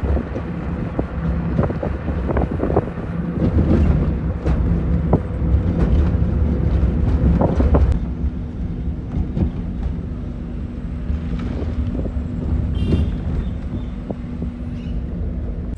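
Car driving along a road, heard from inside the cabin: a low engine and tyre rumble with wind buffeting the microphone and scattered knocks and rattles. About halfway through it gets a little quieter and a steady low engine hum comes in.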